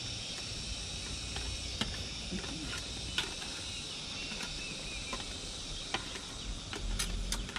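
A steady, high-pitched insect drone, with scattered light clicks of plastic floorball stick blades tapping small perforated plastic balls, several close together near the end.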